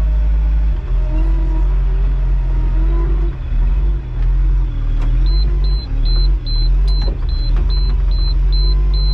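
John Deere tractor engine running under varying load, its pitch rising and falling, with a strong low rumble. From about five seconds in, a high electronic beep repeats about two and a half times a second.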